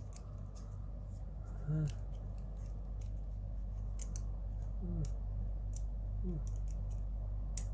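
Light, scattered clicks and ticks of small plastic and metal kit parts being handled and fitted, a screw and nut on a Mini 4WD chassis, over a steady low electrical hum.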